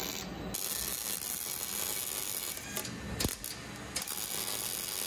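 MIG welder arc crackling steadily as a bent steel exhaust pipe is welded.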